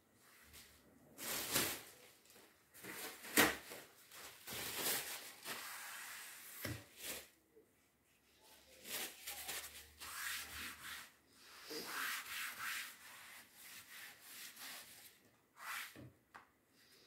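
Handling noise: intermittent rubbing and scraping in several short bouts with brief pauses, the sharpest stroke about three and a half seconds in.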